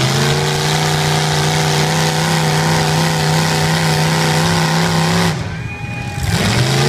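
Pickup truck engine held at high, steady revs as the truck pushes through deep mud. Around five seconds in the revs drop off sharply, then climb back up again near the end.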